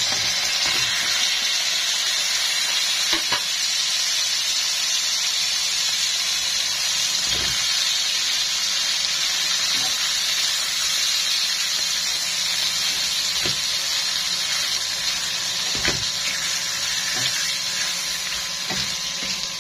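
Freshly added raw chicken pieces sizzling in hot oil with sautéed onions and garlic in a nonstick pan, a steady loud hiss. A slotted spatula turning the pieces gives a few faint taps and scrapes against the pan.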